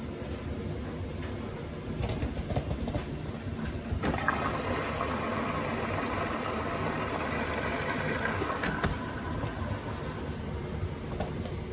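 Beko WTK104121A washing machine drawing in water at the start of a wash: a rushing hiss of water through the inlet valve and detergent drawer starts abruptly about four seconds in and cuts off about four and a half seconds later, over a low steady hum.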